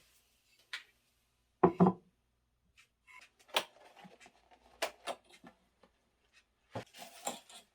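Scattered light clicks and knocks from objects being handled in a small room, the loudest a double knock about two seconds in.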